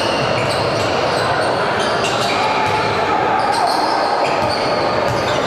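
Basketball being dribbled on a hardwood court in a large reverberant arena, with short high squeaks of sneakers and voices calling out over a steady crowd murmur.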